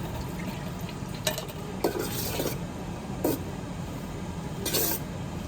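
A spoon stirring seasoned black beans and corn in a pan, giving several short scrapes and clinks over a steady low hum.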